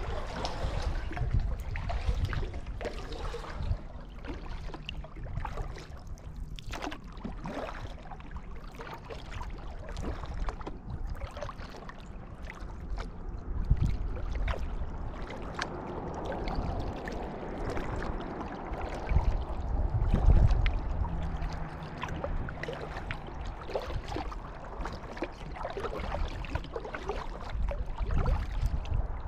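Kayak paddling: the paddle dipping and pulling through the water, with trickling drips and water lapping. Heavy low thumps now and then, the strongest about 14 and 20 seconds in.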